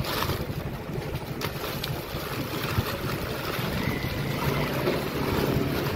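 Thin black plastic carry bag rustling as hands pack small items into it, with a few light clicks.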